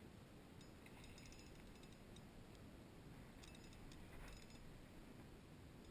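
Near silence, with a few faint, brief clusters of ticking about a second in and again around three and a half and four seconds in.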